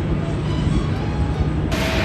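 Jet airliner engine noise: a steady low rumble with a hum, and about a second and a half in, a sudden change to a louder hiss with a steady whine.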